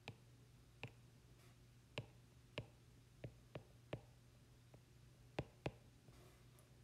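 Faint, irregular clicks of a stylus tapping on a tablet screen while handwriting, about ten in all.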